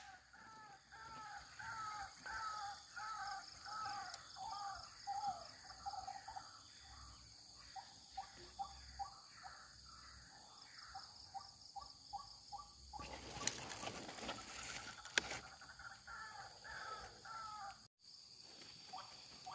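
A bird calling a long series of harsh, repeated notes that come faster toward the end, then a few more calls near the end. Insects drone steadily in the background, and about 13 seconds in there is a brief rustling noise with a click.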